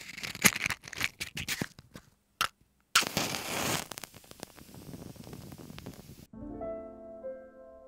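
Crackling, scraping handling noises for about six seconds, with a louder rasping stretch about three seconds in. Then soft piano music starts abruptly.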